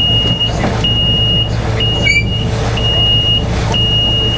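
Electronic warning beeper on an open-sided road tram, a single high tone beeping about once a second, over the steady hum of the tram's engine.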